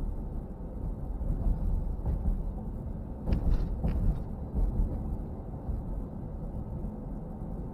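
Car driving, with a steady low rumble of road and engine noise and a brief hiss about three and a half seconds in.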